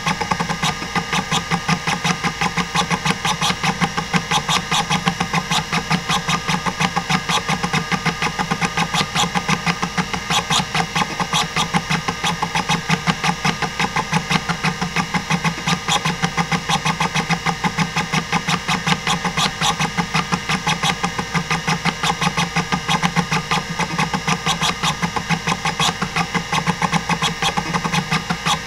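Hitachi DK505-2 26 MB hard drive (1989) seeking continuously during a random-access benchmark: its stepper-motor head actuator makes a steady stream of buzzing clicks, about five or six a second, over the even hum of the spinning platters. The drive is in good health.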